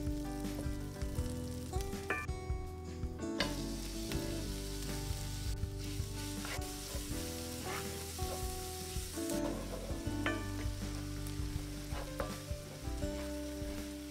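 Butter and minced garlic sizzling in a cast iron skillet, with a wooden spoon stirring and scraping across the pan. The sizzle grows louder about three seconds in.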